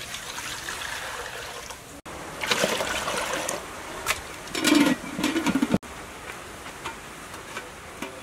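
Water poured into an aluminium pot, then water at a rolling boil in the pot, with loud metallic clatters about halfway through as the aluminium lid is put on.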